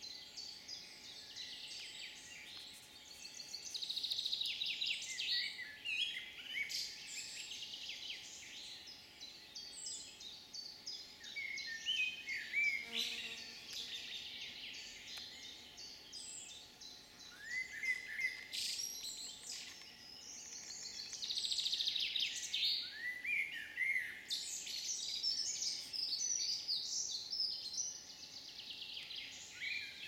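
Woodland songbirds singing: several overlapping songs of quick, high phrases and short falling whistles that swell and fade every few seconds over a faint steady background hiss.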